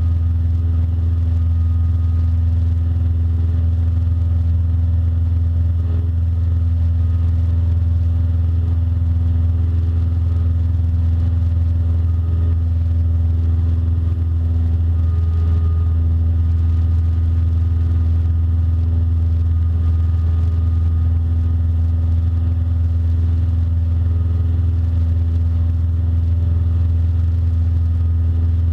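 Cessna 172 Skyhawk engine and propeller droning steadily in the cockpit in flight, a constant low hum with no change in pitch.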